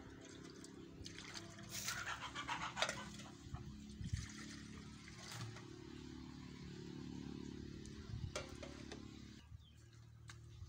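Hands swishing and squeezing leafy greens in a basin of water, with splashy bursts about two and five seconds in. A steady low hum lies under it and stops near the end.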